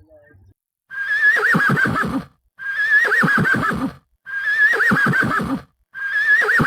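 Horse whinnying four times in a row, each call an identical high, quavering neigh that breaks into falling pulses, with short gaps between them, like one recording repeated.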